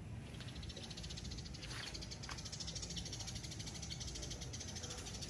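A fast, even, high-pitched rattling trill starts just after the beginning and keeps going over a low rumble.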